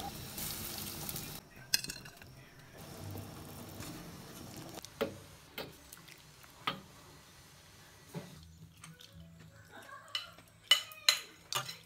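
A pot of white-gourd soup hissing on the boil as sauce is poured in, then a metal ladle knocking a few times against the pot and bowl while soup is served, and near the end a quick run of spoon clinks on plates.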